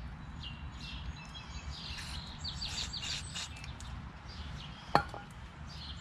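Small birds chirping over a steady low background rumble, with one sharp click about five seconds in.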